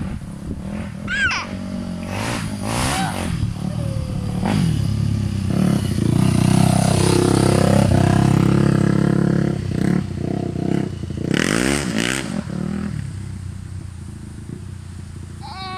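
Dirt bike engine revving as it rides up close and then pulls away down a gravel road. It is loudest in the middle, its pitch drops as it passes, it revs again, and then it fades.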